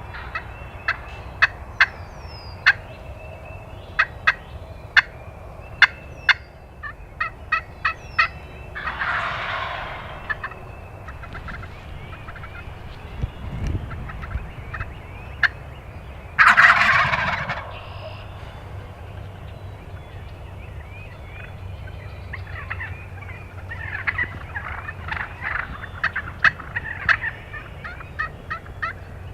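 Wild turkey jakes gobbling, two loud rattling gobbles about nine and sixteen seconds in, with many short, sharp turkey calling notes scattered before and after.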